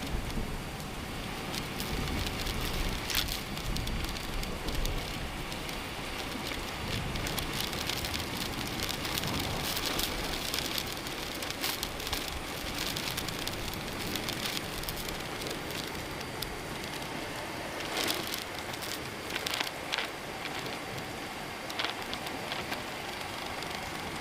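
Heavy rain falling, a steady hiss with a few brief sharper spatters.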